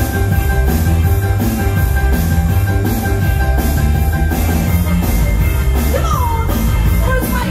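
Live band playing an up-tempo rock-and-roll song with a steady drum beat and bass, mostly instrumental; a singing voice comes in near the end.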